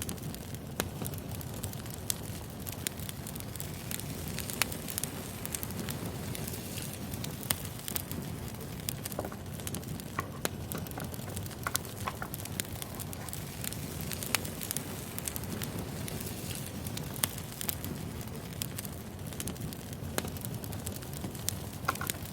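Wood fire burning: steady low rumble with irregular sharp crackles and pops of burning firewood.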